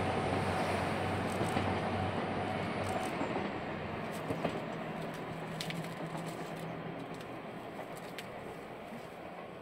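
JR Hokkaido KiHa 283 series diesel express train running away from the listener. Its engine drone and rolling noise fade steadily, with a few faint clicks from the wheels on the rails.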